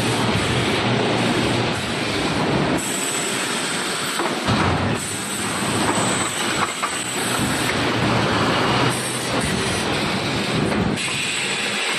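3D wall panel wire-welding machine running, a continuous mechanical clatter with hiss whose character changes abruptly several times.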